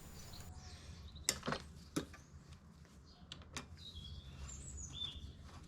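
8mm Allen key working the crank attachment bolt out of a square-taper crank: a few sharp metallic clicks and taps, the loudest three in the first two seconds, with faint high chirps later on.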